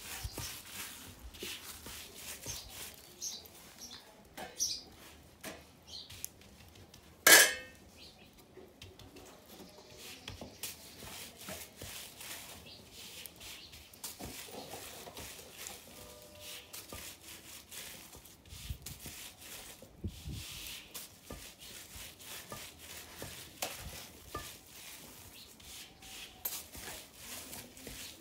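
Kitchen handling sounds at a wood-fired stove: scattered light clicks and taps as jowar rotti are turned and handled on iron griddles, with one sharp clank about seven seconds in, the loudest sound.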